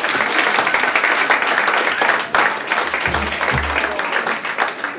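An audience applauding, a dense patter of many hands clapping that begins to die away near the end.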